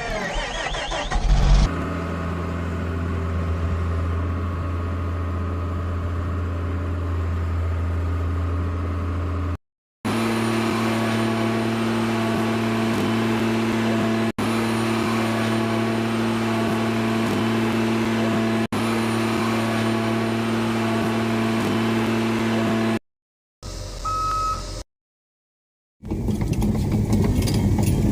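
Caterpillar 325D forestry excavator's diesel engine starting up in the first couple of seconds, then running steadily in a series of short clips separated by brief silences; in the last couple of seconds it sounds rougher and noisier, as under more throttle or work.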